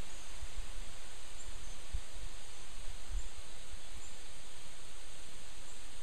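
Steady outdoor wind noise rustling through pine boughs, with low rumbles of gusts hitting the microphone about half a second in, at two seconds and at three seconds, and a few faint high chirps.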